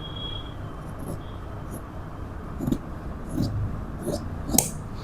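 Scissors cutting through fabric in a series of short snips, about six, the loudest near the end, over a steady low hum.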